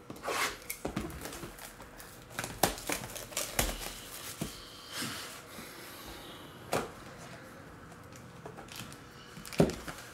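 Handling of a trading-card box and its packaging: rustling, clicks and taps as the box is opened and a foam-wrapped encased card is set down, with a sharp knock near the end.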